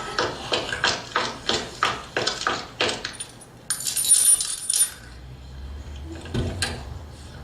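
Hurried footsteps, about three a second, followed by a brief jingle of keys and then a low engine rumble with a single thud, like a car door shutting: sound effects of someone running to a car to get away.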